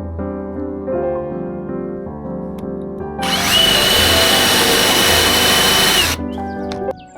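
A power tool running for about three seconds, a steady high whine that spins up quickly and winds down, over soft piano background music.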